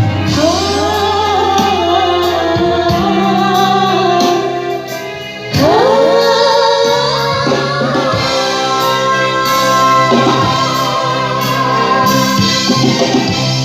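Music with a singer, played loud through a line-array PA system on sound check. Long held vocal notes slide up into each phrase over a steady bass line and percussion, with a short dip before a new phrase about five and a half seconds in.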